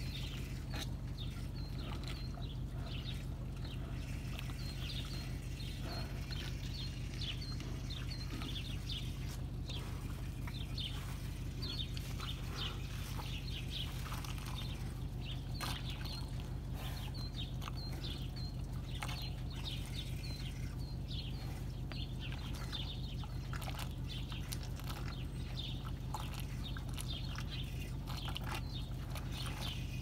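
Small birds chirping in many short, high notes over a steady low hum, with cattle drinking at a water trough.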